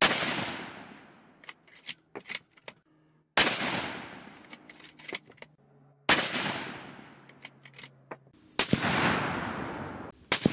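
Three shots from a .243 Winchester Winchester Model 70 Featherweight Compact bolt-action rifle, about three seconds apart, each followed by a long echo fading out, with faint clicks between them. Near the end come two more sharp bangs.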